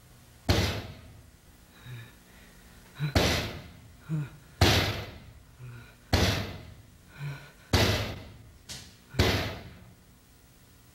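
A fist pounding hard on a door, about six heavy blows roughly a second and a half apart, each ringing briefly, with a couple of lighter hits among them.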